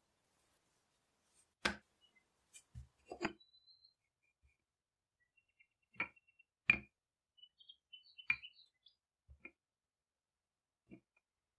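Wooden rolling pin and hands knocking on a hard countertop while dough is rolled out: a few scattered sharp clicks and knocks, several seconds apart.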